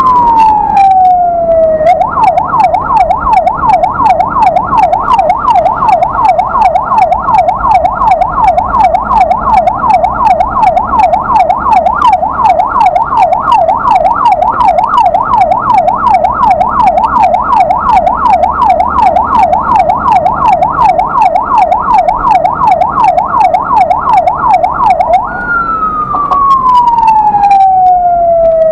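Ambulance's electronic siren: a slow falling wail, switched at about two seconds to a rapid up-and-down yelp that runs until near the end, then back to the slow falling wail. Low engine and road rumble underneath.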